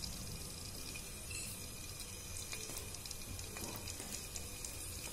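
Finely chopped garlic sizzling gently in a little hot oil in an aluminium wok, a steady soft hiss with a few faint crackles.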